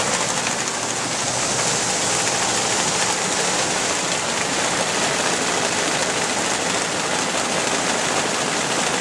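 Mixed bird feed of cracked corn and seed pouring in a steady stream from a metal spout into a hopper, a continuous rushing hiss like rain, with the feed mill's machinery running underneath.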